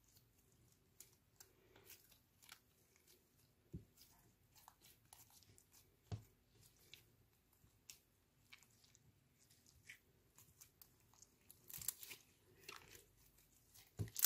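Hands kneading and stretching clear slime mixed with lipstick, giving a steady run of small sticky clicks and crackles as the slime folds and pulls apart. A few louder pops come about four and six seconds in, and a thicker burst of crackling near the end.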